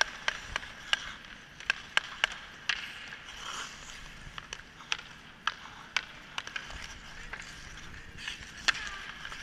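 Hockey sticks clacking against the puck and the ice in a dozen or so sharp, irregular clicks, over the scrape of skate blades on the ice.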